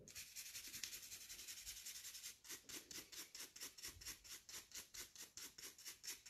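A small nail dust brush's bristles swept quickly back and forth over a filed gel nail, brushing off filing dust. It makes a faint, rhythmic scratchy swishing of several strokes a second.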